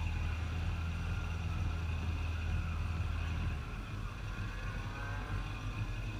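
Car engine idling steadily as a low hum, which drops away about three and a half seconds in.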